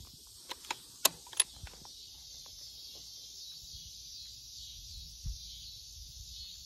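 Steady high chirring of insects on a summer evening, with a few sharp clicks about half a second to a second and a half in, the loudest two close together.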